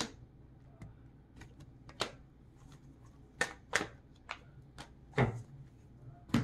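Tarot cards being shuffled and drawn from the deck: a string of sharp, irregular card snaps and taps, about eight in six seconds.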